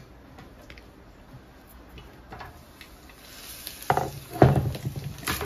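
A glass lid is lifted off a frying pan and set down with a couple of knocks about four seconds in. As the pan is uncovered, the turkey burgers frying in olive oil and butter sizzle.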